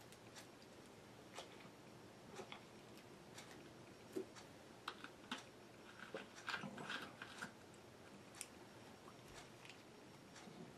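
Faint scattered clicks and taps, with a denser run of small clicks about six to seven and a half seconds in as a bottle's screw cap is twisted closed.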